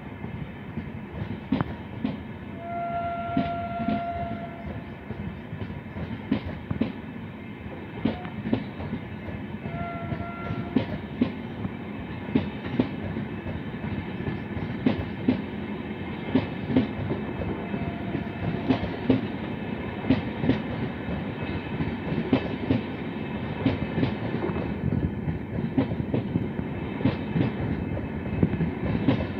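LHB passenger coaches of an express train rolling past at speed, their wheels beating a steady clickety-clack over the rail joints. A distant train horn sounds for about two seconds around three seconds in and briefly again near ten seconds.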